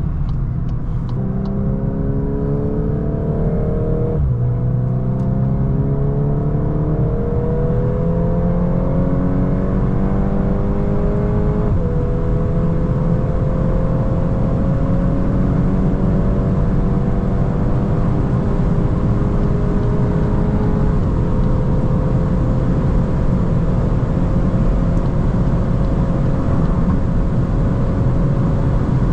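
Volkswagen Golf 8 R Performance's turbocharged 2.0-litre four-cylinder pulling hard under full acceleration at high speed, its note rising through the gears. It shifts up with a sudden drop in pitch a few seconds in and again about twelve seconds in, then climbs slowly in a tall gear and levels off. Steady road and wind noise runs underneath.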